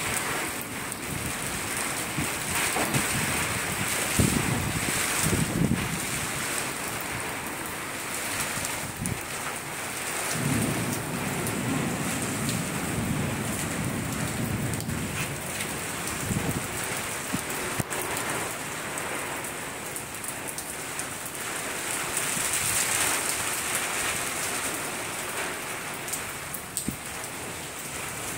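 Steady rain falling during a thunderstorm, with low rolling rumbles of thunder about four seconds in and again from about ten to fifteen seconds.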